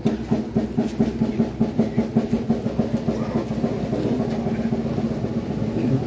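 Procession drums beating in a quickening run of strokes that merges into a continuous drum roll about three seconds in, over a low steady tone.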